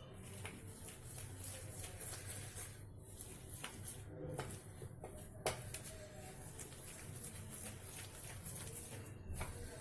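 Thick ground urad dal batter being beaten in a bowl to aerate it: soft, irregular squelching and tapping, with one sharper knock about five and a half seconds in.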